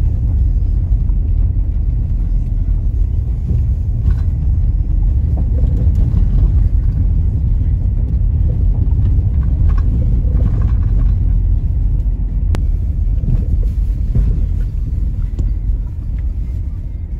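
Car driving slowly over a rough unpaved dirt track, a steady low rumble of engine and tyres heard inside the cabin, with a few light knocks along the way.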